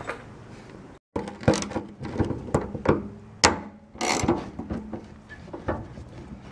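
Socket ratchet with an extension clicking in irregular short runs as the 10 mm nuts on a gas tank's fuel pump flange are loosened.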